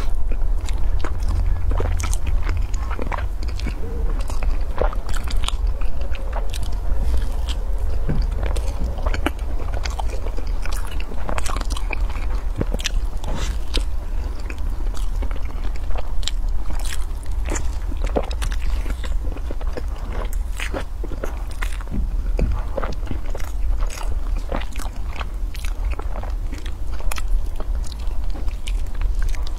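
Close-miked eating: a person bites and chews a soft egg-and-bread roll, with many sharp irregular mouth clicks and smacks over a steady low hum.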